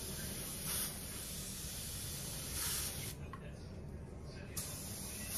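Gravity-feed air spray gun hissing as it sprays paint. The spray stops about three seconds in and starts again about a second and a half later.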